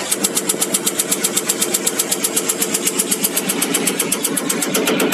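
Caterpillar 3412E HEUI injector firing on a diesel injector test bench: rapid, evenly spaced ticks of the injection pulses that start suddenly, over the steady running of the bench's pumps.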